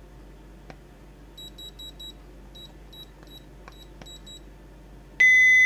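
Blaupunkt Q3200 alarm remote keypad beeping as its keys are pressed: about ten short, high key beeps in three quick runs, with faint button clicks. About five seconds in comes a single loud, longer beep.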